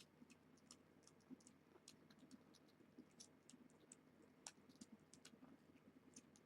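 Near silence with faint, irregular soft clicks from a nursing kitten suckling on the mother cat.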